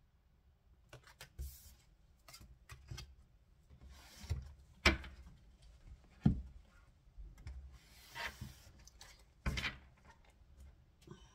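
Oracle cards handled on a wooden tabletop: soft rubbing and sliding of card stock, scattered light clicks, and three sharper taps as a deck is set down and knocked square.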